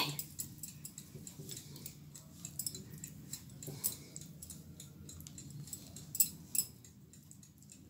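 Silicone pastry brush dabbing and spreading sauce over pizza dough on a baking tray: soft scattered clicks and taps, a few sharper ones in the second half, over a low steady hum.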